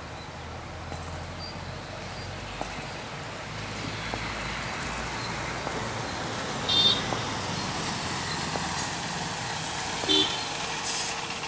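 Road traffic running steadily, with two short horn toots, one about seven seconds in and one near the end.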